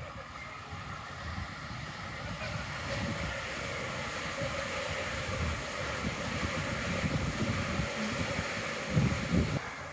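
Hamburg U-Bahn train on the U1 line approaching and running beneath a footbridge: a rolling rush that builds over several seconds, with a faint steady whine. Gusts of wind buffet the microphone throughout, loudest just before the end.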